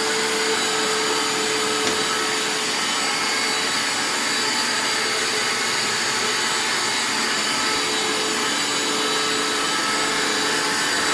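Shop vac running steadily, a rush of air with a constant whine over it.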